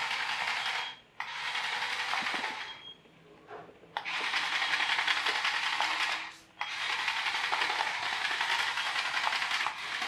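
Small electric drive motor and plastic gearbox of a single-channel radio-controlled toy bulldozer whirring and rattling as it drives across a wooden floor. It runs in four stretches of about one to three seconds, with short breaks between them.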